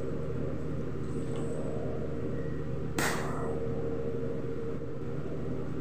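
Steady low mechanical hum, with one sharp click about three seconds in.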